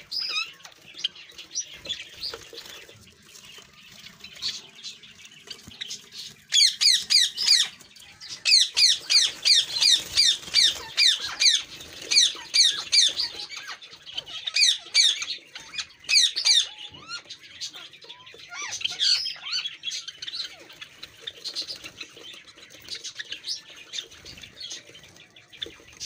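Parrots squawking in fast, repeated runs of sharp high-pitched chirping calls, loudest from about six seconds in until about seventeen seconds in, with fainter scattered chirps before and after.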